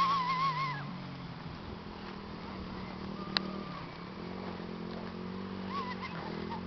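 Electric ATV's motor humming steadily in the distance, dipping slightly at times. Right at the start a short wavering high-pitched call is the loudest sound, and there is a single sharp click about three seconds in.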